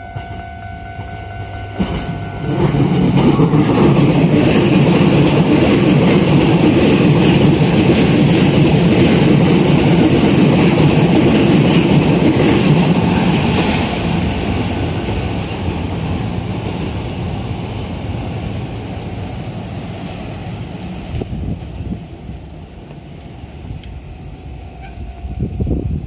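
Toei 5500 series electric train passing close by, loud for about ten seconds and then slowly fading as it runs away. A level-crossing warning bell rings steadily at the start and stops a couple of seconds in as the train's noise rises.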